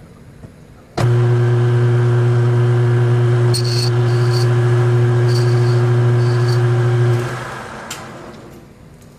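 Metal lathe's electric motor switched on, running steadily with a low hum, then switched off and coasting down. Four brief high squeaks come partway through the run.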